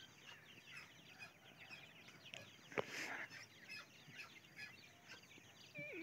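Francolin chicks peeping: many short, high chirps in quick succession. A single sharp click comes about three seconds in, and a lower falling call near the end.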